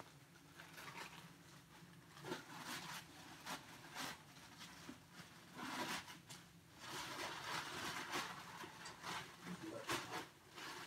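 Plastic bag rustling and crinkling as it is handled, in short irregular crackles.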